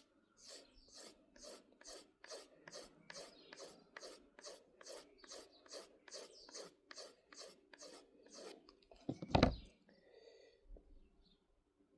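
A Victorinox Adventurer pocket-knife blade is stroked fast and rhythmically across a leather strop, about three light scraping strokes a second, to finish and straighten the edge. About nine and a half seconds in there is a single loud thump.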